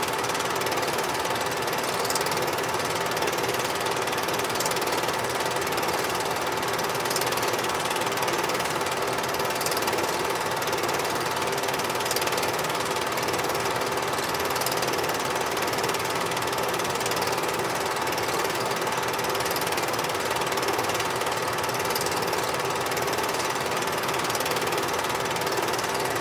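Super 8 film projector running during the film transfer: a steady mechanical whir and clatter from the film-advance mechanism, with a faint tick every two to three seconds.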